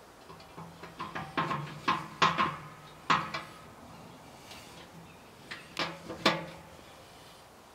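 Sharp metallic clicks and knocks of parts and fittings being handled at a pressure switch on a steel air-compressor tank. There is a busy run of them about a second in, and a few more near the end.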